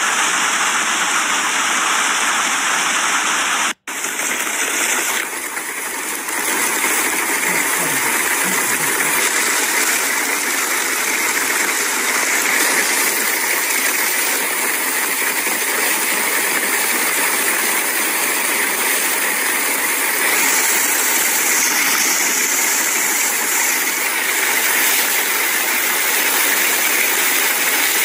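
Heavy hail pelting down on a deck, a pergola roof and a garden: a dense, steady roar of hailstones striking. It breaks off for a moment about four seconds in.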